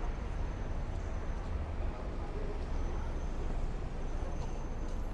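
Busy city street ambience: a steady low rumble of traffic with indistinct voices of passers-by.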